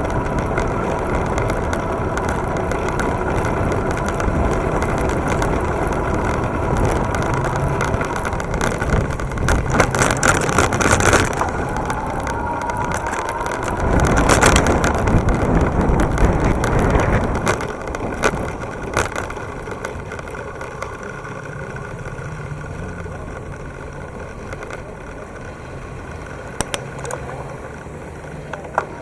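Riding noise from an electric bike on rough city pavement: a steady rumble of tyres, road vibration and wind, heard through a bike-mounted camera. It swells louder twice in the first half and eases off in the last third.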